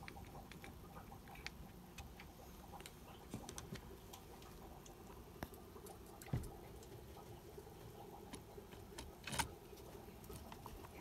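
Faint scattered clicks and taps of plastic RC car chassis parts and a hex driver being handled, over a faint steady hum, with two louder knocks about six and nine seconds in.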